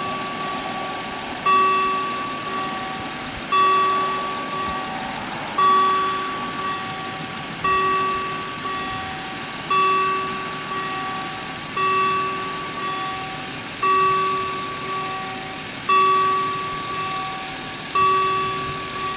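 German level-crossing warning bells striking while the barriers are down: one bell strikes about every two seconds, each ring fading away before the next, and a second, quieter bell of a different pitch strikes in between.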